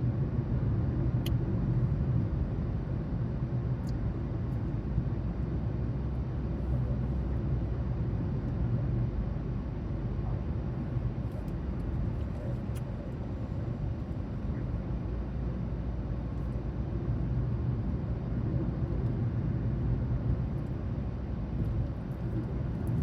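A car's steady running noise: an even low rumble with no breaks.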